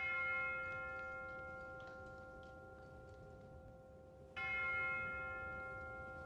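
A bell-like chime struck twice, once at the start and again about four seconds in, each note ringing and slowly fading.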